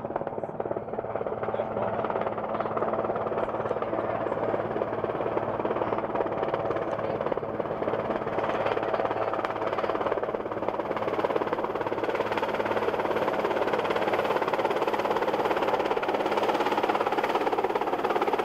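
Sikorsky VH-3D Sea King helicopter coming in to land, its rotor and turbine noise steady and growing gradually louder as it comes closer.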